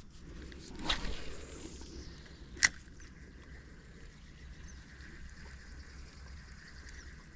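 A fishing cast: a swish, then line running off the reel and falling in pitch as the spool slows. A sharp click comes about two and a half seconds in, followed by a faint steady whir of line being reeled in.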